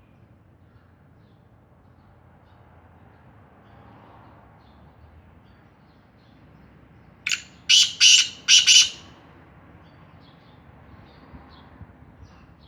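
Black francolin calling once, a little past halfway: a short burst of harsh, grating notes lasting about a second and a half, a brief first note followed by three longer ones.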